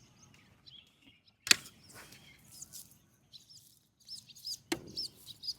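Small birds chirping in quick, short arched notes in the dawn chorus, busiest in the second half. Two sharp clicks or knocks stand out above them, one about a second and a half in and one near the end.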